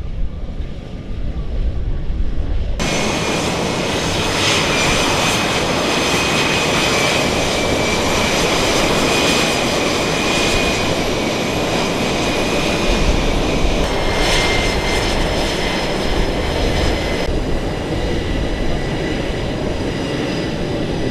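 Low wind rumble that cuts suddenly about three seconds in to loud aircraft engine noise with a steady high whine. The noise shifts abruptly twice more later on.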